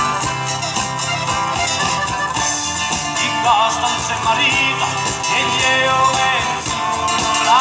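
Live folk band playing taranta, the Calabrian tarantella, on accordion, violin and acoustic and bass guitars, with short sliding notes in the middle.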